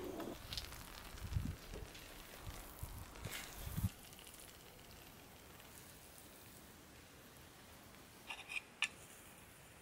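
Faint knocks from utensils and pans being handled, then near quiet. Near the end come about four quick, sharp clicks of a wooden spoon against a small cast-iron skillet as thick cheese fondue is stirred.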